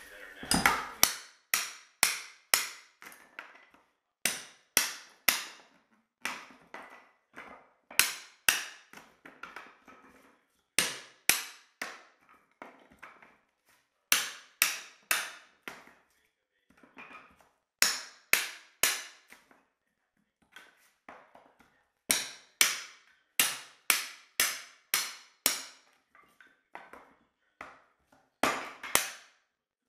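Hammer blows on a wooden subfloor during hardwood floor removal, coming in quick runs of two to four sharp strikes about half a second apart, with short pauses between runs.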